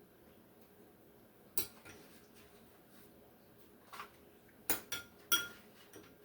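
Utensil clinking against a dish while chicken pieces are turned and coated in marinade: about five short, sharp clinks, the loudest near the end, one ringing briefly.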